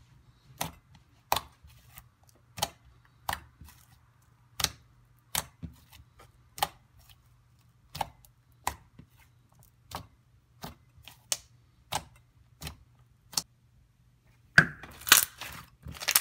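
Sharp clicks, evenly spaced about one and a half a second, over a faint steady hum; near the end they give way to a denser run of crackling.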